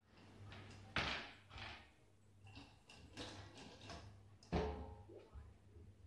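A small child clattering a spoon in toy kitchen pots and pans, with scattered knocks; the two sharpest come about a second in and a little past the middle.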